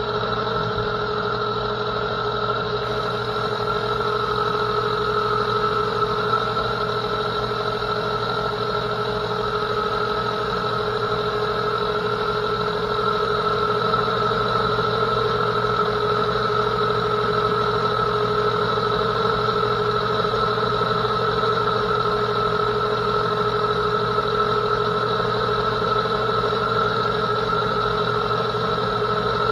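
Metal lathe running under power while a TNMG carbide turning insert cuts along a spinning metal bar: a steady drone with several held whining tones over cutting noise.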